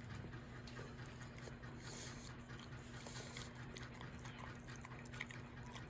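A dog chewing and eating, with scattered small wet mouth clicks over a steady low hum.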